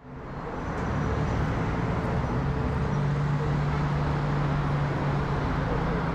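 A Boeing 787-9 Dreamliner on approach, passing overhead. Its engines make a steady jet noise with a low hum, fading in over the first second.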